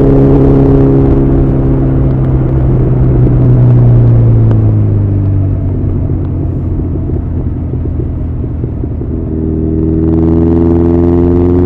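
Honda CB1100's air-cooled inline-four through an Arrow titanium full-system exhaust, heard on the move: it holds steady revs, drops in pitch about four seconds in as the throttle closes, runs quieter and more ragged for a few seconds, then settles into a clean note a little before the end that climbs slowly as it pulls again.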